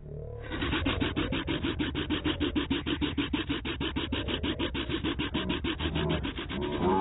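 A man's mouth sound slowed down in slow motion, turned into a long, deep run of rapid, even pulses, about eight a second, that stops just before the end.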